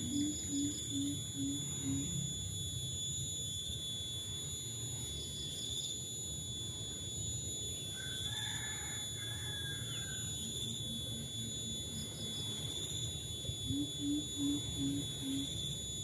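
Coucal (burung bubut) giving runs of deep, evenly spaced hoots, about two or three a second: one run at the start, a fainter one about ten seconds in and another near the end. A steady high-pitched whine runs under it throughout.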